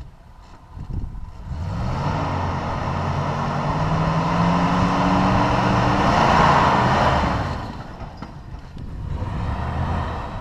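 Off-road rock crawler's engine revving under load as it climbs a rock obstacle, its pitch rising slowly for about six seconds, then easing off, with a smaller rev near the end.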